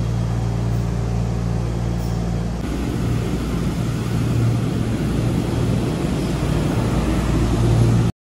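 Chiba Urban Monorail suspended train at a station platform: a steady low electric hum with a whirring rumble. The sound changes at a cut about two and a half seconds in and stops abruptly just before the end.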